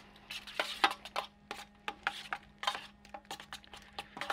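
Metal spoon stirring a creamy dressing in a stainless steel tray, with irregular clicks and scrapes of the spoon against the steel.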